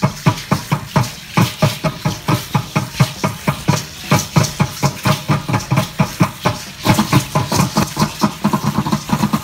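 Aztec dance drumming: a drum beaten in a fast, even rhythm of about four beats a second, with a rattling hiss on each beat from the dancers' ankle rattles. The beat quickens near the end.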